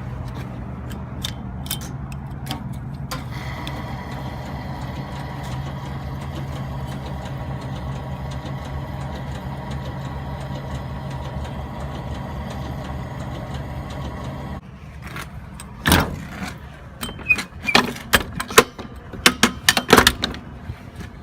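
Gas station fuel pump dispensing fuel, a steady low hum with a thin high whine, cutting off abruptly about two-thirds of the way through as the fill ends. A run of sharp clicks and knocks follows.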